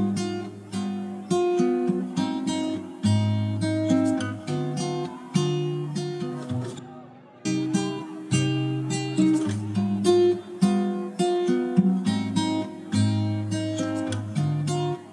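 Background music: an instrumental tune of plucked acoustic-guitar notes, with a brief break about seven seconds in.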